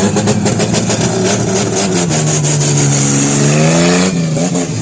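Chevrolet Opala engine rumbling loudly through its exhaust, with quick sharp crackles over the first two seconds. The revs then dip and climb again, and the high part of the sound cuts off suddenly about four seconds in.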